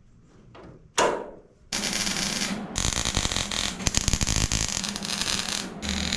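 Arc welding on the thin, rusty sheet steel of a door skin: a dense, loud crackling that starts about two seconds in and runs in two long stretches. It follows a single sharp clank about a second in.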